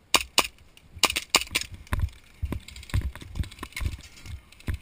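Airsoft gunfire: a quick string of sharp cracks, seven or so, in the first second and a half. Then running footsteps thud on concrete about twice a second, and one more sharp crack near the end.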